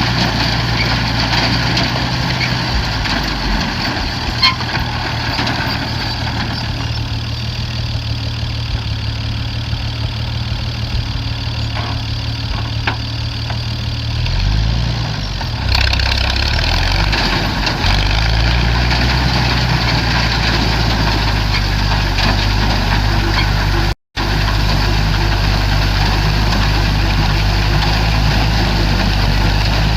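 Massey-Harris Super 101 tractor engine running steadily with a low drone; a little past the middle its speed dips and comes back up. The sound cuts out for an instant about two thirds of the way through.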